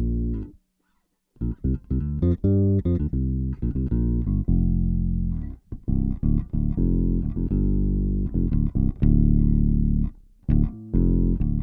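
Electric bass guitar played through a Boss OC-2 Octave pedal, its one- and two-octave-down voices mixed in under the direct note, giving a thick, deep tone. Quick runs of plucked notes, a short pause just after the start, then longer held notes in the middle.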